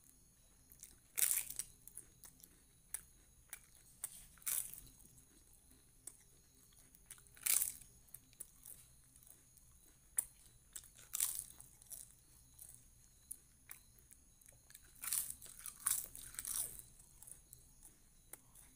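Crisp papad being bitten and chewed: loud, sharp crunches every few seconds, with a quick cluster of them near the end, and small crackles of chewing in between.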